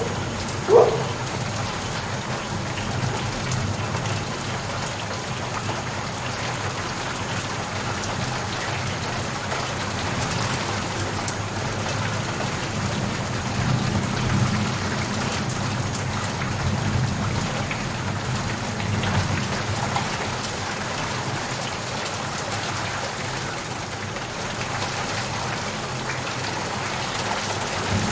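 Steady heavy rain falling on surfaces, with a low rumble of distant thunder swelling and fading in the middle. A dog barks once, briefly, just under a second in.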